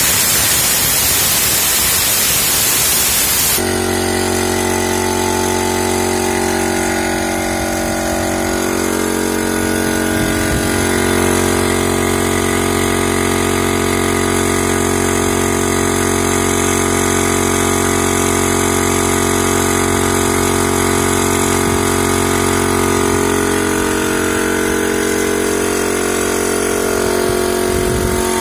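Stanley Fatmax D211/8/24s coaxial air compressor running loud: a harsh hiss of air for the first three and a half seconds, then its 2 HP electric motor and pump running at a steady, unchanging pitch.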